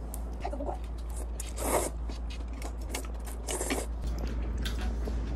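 Close-up eating sounds: slurping cold soybean-broth noodles (kongguksu) from a bowl twice, with chewing and small clicks between.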